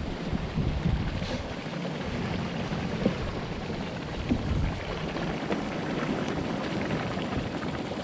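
Boiling hot spring and steam vent in a geothermal field: a steady hiss with bubbling and spattering of hot water and mud, over a low uneven rumble.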